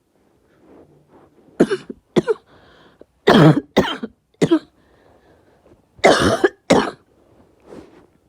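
A person coughing: about seven short, sharp coughs in three quick bunches, then a faint one near the end.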